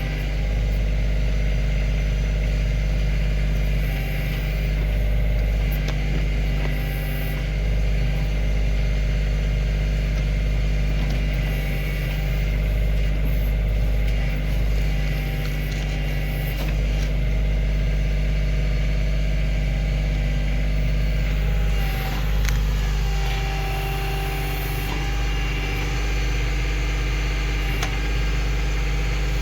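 Kioti CK2610 compact tractor's diesel engine running steadily while the backhoe works, with a few faint knocks from the machinery.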